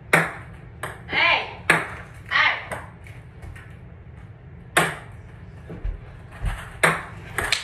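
A ping pong ball knocking sharply on hard surfaces and on a small metal cup, about six hits spread out, some with a light metallic ping. Two short voice sounds come in the first few seconds.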